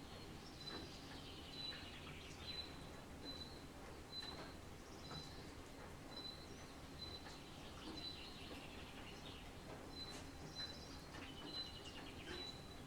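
Wild songbirds singing: one bird repeats a short high note two to three times a second, while others give longer falling trills a few times, over faint background noise with scattered sharp ticks.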